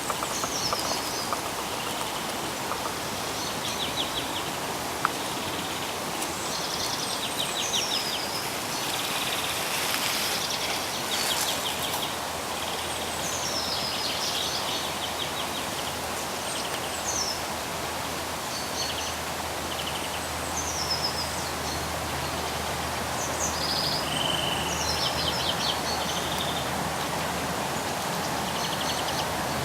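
Small songbirds singing spring song in short repeated phrases, quick falling whistles and buzzy trills, over a steady background rush of noise. A faint low drone comes in about halfway through and fades later on.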